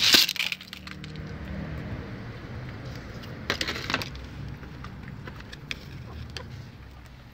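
A handful of cracked corn scattered onto the ground for backyard chickens, a short rattling spray of kernels at the start, then the chickens pecking at the kernels with sharp taps, a quick cluster of them about three and a half seconds in and a few single ones later.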